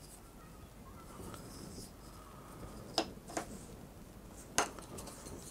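Wooden T-puzzle pieces being slid about by hand on a tabletop mat, with a faint rustle throughout. Two quick clicks come about three seconds in as pieces knock together, and another follows about a second and a half later.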